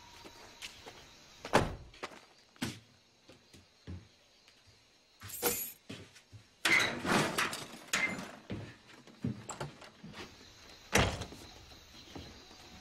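An old Ford Bronco's door slammed shut with a heavy thunk, followed by scattered clicks and a stretch of handling and clattering, then near the end another door bangs shut.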